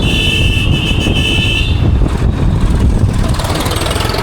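A vehicle horn sounds once, a high steady beep lasting about a second and a half, over the steady low rumble of road traffic and engine.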